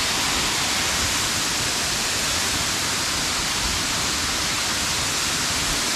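Waterfall spilling in several strands over a rock ledge into the pool below: a steady, even rush of falling water.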